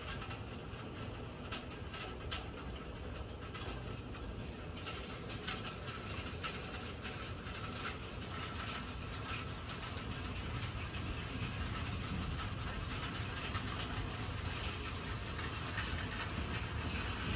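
Hailstorm with heavy rain: a steady rushing hiss full of small sharp ticks as hailstones strike, growing denser and a little louder about five seconds in.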